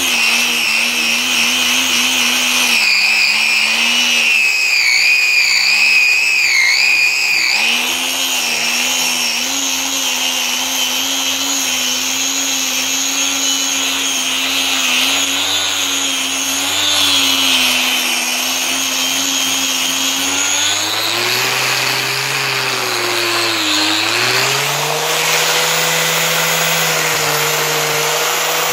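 Handheld electric grinder running continuously while it sands a metal surface, its whine wavering as the load changes. About three-quarters of the way through the pitch sags, then rises again and settles higher.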